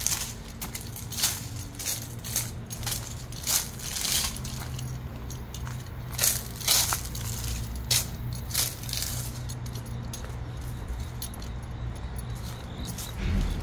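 Footsteps crunching over dry fallen leaves on a concrete path at an uneven walking pace, with a pause partway through, over a steady low hum.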